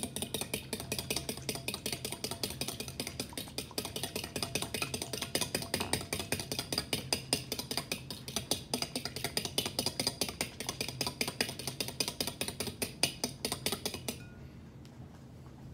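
Fork whisking egg and milk in a glass mixing bowl: fast, even clinking of the tines against the glass, stopping near the end.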